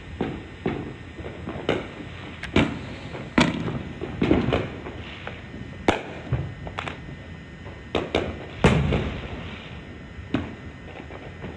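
Fireworks going off: an irregular series of about fifteen sharp bangs over a steady background hiss, each with a short echoing tail. The loudest comes near the end and has a longer low rumble.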